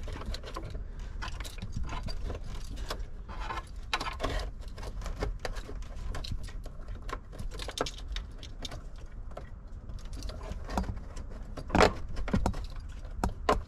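Hands pushing a seat air pump, its air lines attached, back into its place under a car seat: a run of small clicks, rattles and knocks, the loudest near the end.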